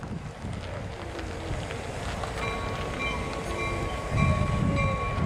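Diesel locomotive approaching at slow speed, its engine rumble growing louder about four seconds in, with a thin steady high tone from about halfway.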